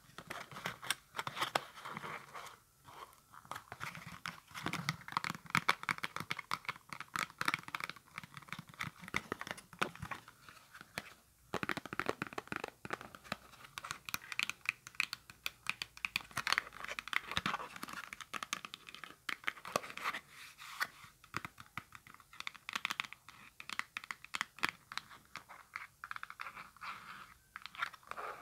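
Long fingernails rapidly tapping and scratching on a small holographic cardboard box: a dense run of crisp clicks mixed with scratchy, crinkly rustling.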